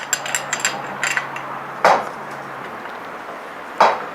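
Steel wrenches clinking against the scooter's front axle nut as it is tightened: a quick run of light metallic clicks, then two louder clanks about two seconds apart. The wrenches are not quite the right size for the nut.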